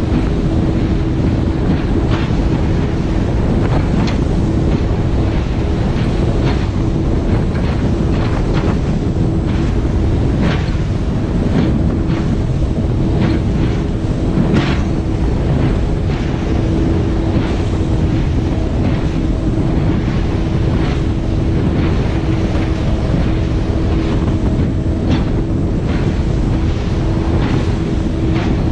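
Speedboat running fast over open-ocean chop: its engine holds one steady pitch under heavy wind buffeting on the microphone, with irregular slaps and splashes as the hull strikes the waves.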